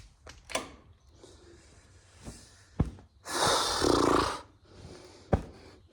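A person breathing out heavily once for about a second, a little past the middle, with a few light clicks and knocks before and after.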